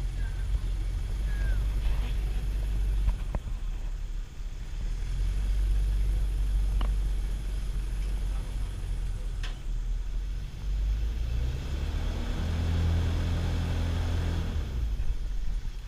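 Tour boat's engine running steadily under a low rumble, with an engine hum standing out between about 11 and 15 seconds. A few short bird chirps near the start.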